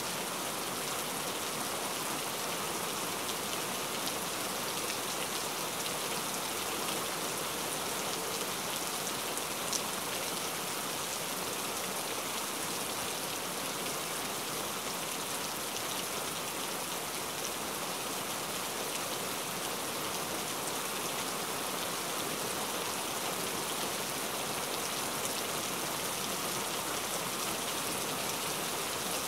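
A pot of water boiling steadily with cauliflower florets in it, a continuous even bubbling.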